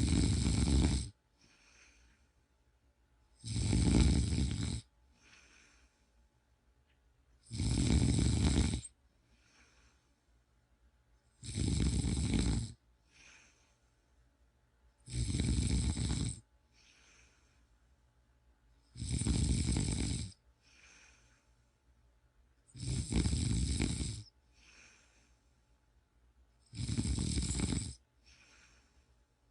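A person snoring in a slow, even rhythm: a loud snore about every four seconds, each lasting about a second, with a faint breath between snores.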